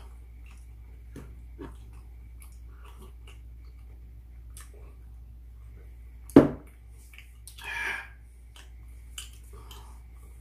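Eating at a table: chewing and scattered small clicks of chopsticks, with one loud knock on the table about six seconds in, followed a second later by a short hissing noise.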